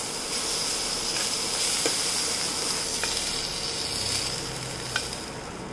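Sliced mushrooms sizzling in olive oil in a very hot nonstick pan: a steady hiss that eases slightly near the end, with a few light clicks.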